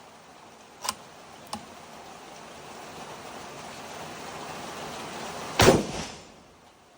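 Rain hissing steadily and growing louder. Two sharp clicks come early on, and then a single rifle shot goes off sharply about five and a half seconds in.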